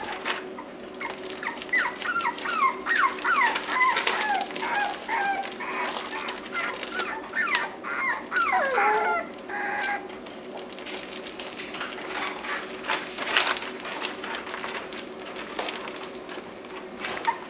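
Six-week-old Cavalier King Charles Spaniel puppies whimpering: a run of short, high whines that fall in pitch, from about two seconds in to about nine seconds, then quieter with scattered clicks.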